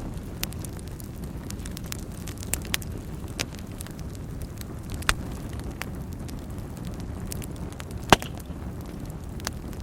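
Wood fire burning in a fireplace: a steady low rumble of flames with scattered crackles and pops, the loudest pop about eight seconds in.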